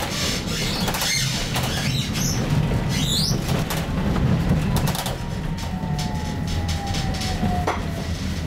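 Stockholm A35 tram running and slowing down, a steady low rumble from the running gear with scattered clicks and rattles. During the second half a faint whine from the electric drive slowly falls in pitch as the tram brakes.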